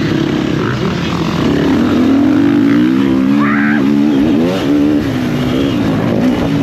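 Motocross bike engine running hard on the throttle, its pitch rising and falling several times as the bike accelerates and shifts.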